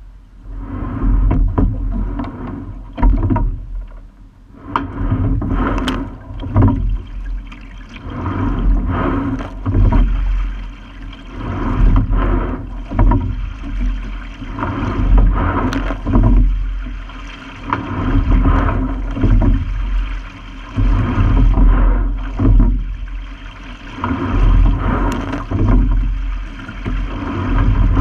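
Single racing scull being rowed: water rushing along the hull and oar splashes swell and fade with each stroke, about every two seconds, over a heavy rumble, with a few sharp knocks from the rigging.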